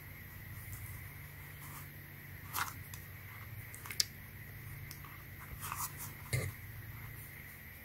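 Faint handling noise of hands gripping and flexing a rubber slide sandal, with a few short rubbing and clicking sounds, the clearest about two and a half seconds in, at about four seconds, and again around six seconds, over a low steady hum.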